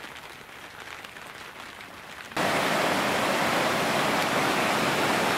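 Faint patter of light rain, then, at a sudden cut about two and a half seconds in, a small river (the Olkha) rushing loudly and steadily.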